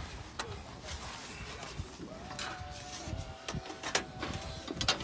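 A few short, sharp metallic clicks and light taps as a steel roofing shingle and a pair of tin snips are handled and trimmed.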